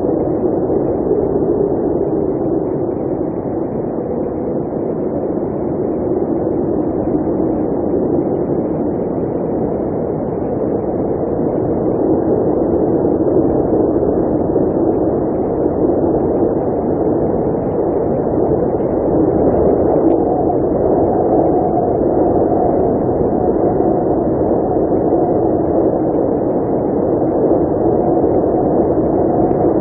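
Blizzard wind blowing steadily: a dense, low rushing noise that swells and eases slowly, with a faint higher whistle coming in about two-thirds of the way through.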